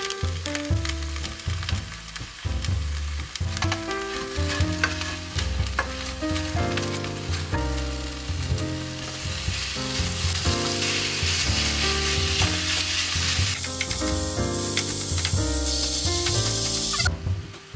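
Onions and mushrooms sizzling in a frying pan, with short clicks of stirring. About nine seconds in, a louder sizzle swells as raw minced chicken breast goes into the hot pan, then cuts off suddenly near the end. Background music plays throughout.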